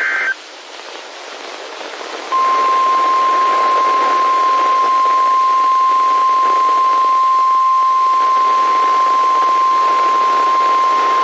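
Weather-radio alert audio: a short burst of the digital alert header ends just after the start, radio hiss follows, then the NOAA Weather Radio 1050 Hz warning alarm tone sounds as one loud, steady beep for about nine seconds before cutting off. The tone signals that a warning or watch message is about to be read.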